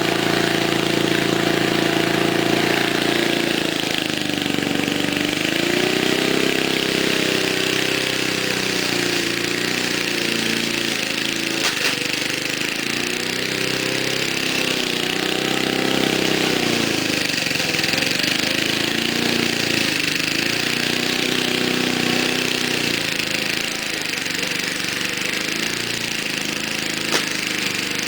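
Single-cylinder 3.5 hp Briggs & Stratton engine on a 1980s MTD push mower running, its speed sagging and picking up again every few seconds. It runs a little finicky after sitting about a year with old fuel in it.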